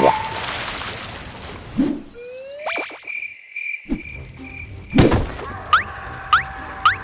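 A string of cartoon-style sound effects: a thud, a few rising swoops and a held high electronic tone, a sharp hit about five seconds in, then a run of short rising chirps about every half second.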